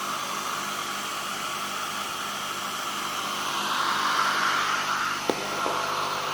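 Steady fan-like whir with a faint low electrical hum, from the inverter test rig running under load; the whir swells a little about four seconds in, and there is a single sharp click about five seconds in.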